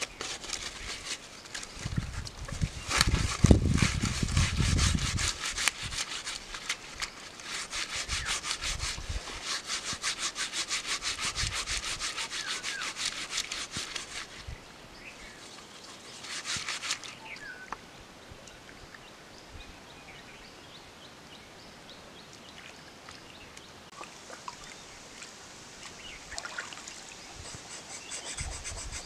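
Fast, rasping scraping strokes along a catfish's skin, continuing for about the first half and then stopping. A short second burst of scraping follows a couple of seconds later.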